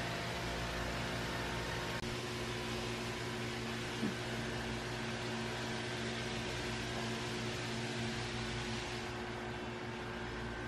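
Steady drone of a greenhouse ventilation fan: a low hum under an even rushing noise. A short faint squeak sounds about four seconds in.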